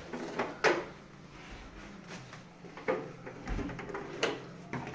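A few separate knocks and clicks of things being handled and set down, with quiet room sound between them.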